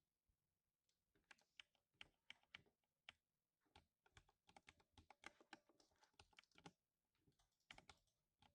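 Quiet typing on a lubed 60% mechanical keyboard: runs of rapid keystroke thocks start about a second in, break off briefly near the end, then resume with a few more strokes.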